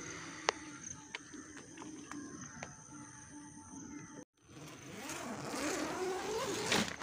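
A tent's door zip is pulled open along with the rustle of nylon tent fabric, growing louder over the last couple of seconds. Before that there is only a faint background with a steady high-pitched tone and a few light clicks.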